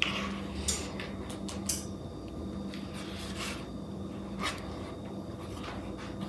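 Chocolate cake batter being poured from a plastic mixing bowl into a baking pan: a few short knocks and soft scrapes as the bowl is tipped and handled, over a steady low hum.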